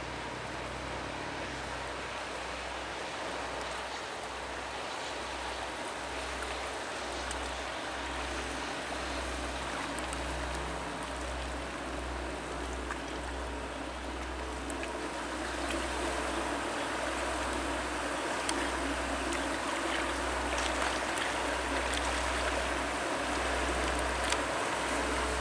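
Inland motor cargo barge passing close by: a steady engine drone under the rush of water from its bow wave and wash, slowly growing louder as it draws level.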